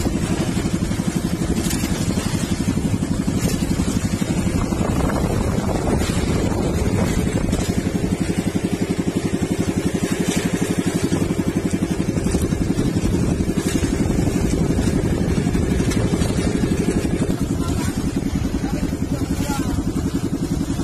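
Engine of a motorized outrigger boat (bangka) running steadily under way, with a fast, even putter and no change in speed.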